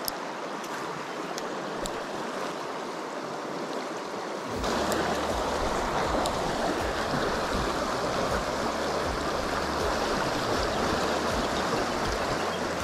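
Shallow river water rushing over a stony riffle in a steady wash, with a few faint clicks in the first two seconds. About four and a half seconds in, it gets louder and a low rumble joins in.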